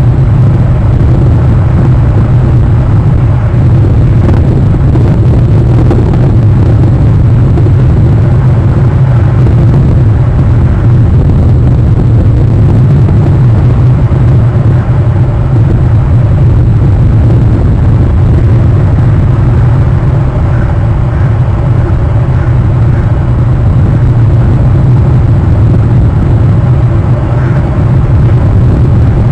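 Steady, loud low rumbling noise that runs unchanged, with a fainter hiss above it.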